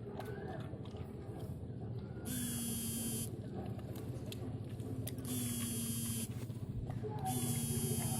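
An electric buzzing tone, about a second long, sounding three times about every two and a half seconds, over faint clicks from a dog chewing.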